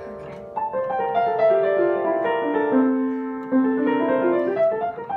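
Piano playing a sequential practice pattern, a short figure of single notes repeated as it moves down the scale and turning back up near the end.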